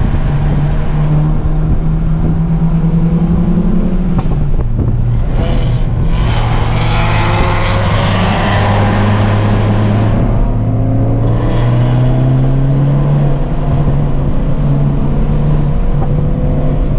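Hyundai Veloster N's engine, heard from inside the car, pulling through the revs on a winding climb: the note rises, drops about four seconds in as the driver lifts or shifts, then holds and rises again. A louder rushing roar swells for about four seconds in the middle.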